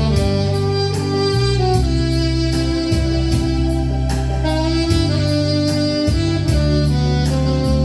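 A 1965 Buescher 400 saxophone playing a slow song melody in held notes over a recorded backing track with a steady beat.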